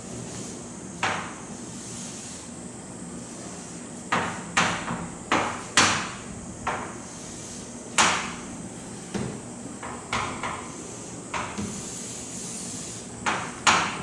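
About a dozen sharp taps and knocks at irregular intervals, the loudest around six and eight seconds in: a pen or chalk striking a writing surface while current paths are drawn on a circuit diagram.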